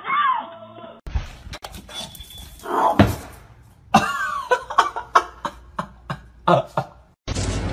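A pug making short noises on a tiled floor, among many sharp clicks, the loudest a sudden burst about three seconds in.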